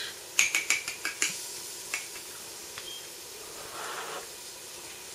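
A metal spoon clinking several times in quick succession against a cup of hot chocolate, with one more clink a little later; near the end comes a short, soft puff of breath blowing on a spoonful to cool it.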